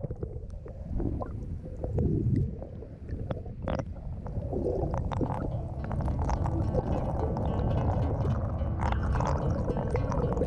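Underwater sound at the side of a canoe: muffled gurgling and sloshing of water with a low rumble and scattered small clicks, as a wooden paddle blade strokes through the water.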